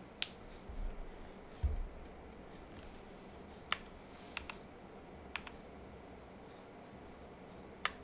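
Separate keypresses on a Cyberboard R3 mechanical keyboard with lubed Boba U4T tactile switches, an aluminum plate and POM keycaps: about six sharp clacks a second or more apart, with two dull low thumps in the first two seconds.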